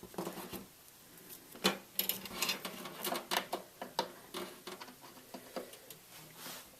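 Irregular plastic clicks, taps and rustles of computer power-supply cables and connectors being handled and worked loose or into place, several a second.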